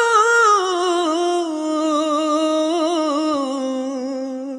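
A singer in a romantic Hindi song holding one long wavering note that slides slowly down in pitch, with hardly any accompaniment, then stops abruptly.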